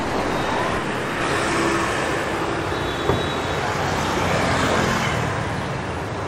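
City street traffic, mostly motorbikes with some cars, passing in a steady wash of engine and tyre noise. A short sharp knock comes about three seconds in.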